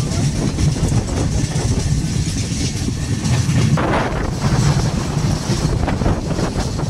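Passenger train running along the line, heard from an open coach doorway: a loud, steady low rumble of wheels on the rails with a rushing hiss above it, turning harsher about four seconds in.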